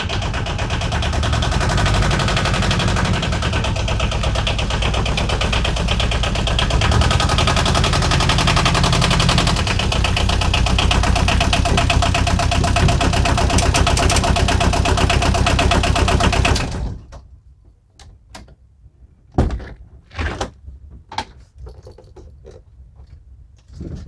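Background music with a steady beat and changing bass chords, cutting off suddenly about 17 seconds in. After it, a few scattered thuds and clicks of the van's cab door being opened.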